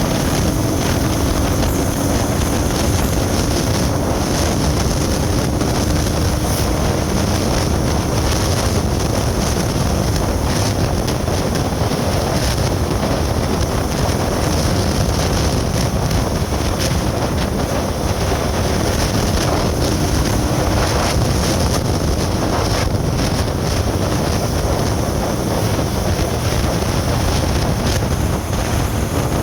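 Steady road and wind noise from a vehicle in motion, with wind buffeting the microphone.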